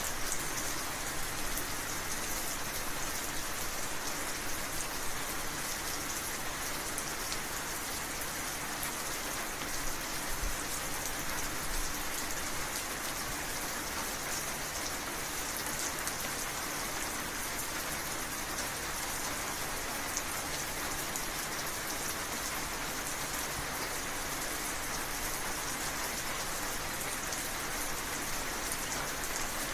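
Steady heavy rain falling on surfaces, an even hiss with scattered drop patter.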